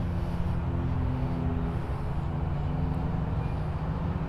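Steady low hum of a running motor-vehicle engine, shifting slightly in pitch.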